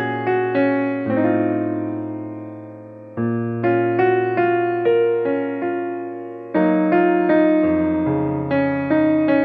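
Background music: a gentle piano or electric piano melody over held bass notes, with a new phrase starting about a second in, again about three seconds in and near six and a half seconds.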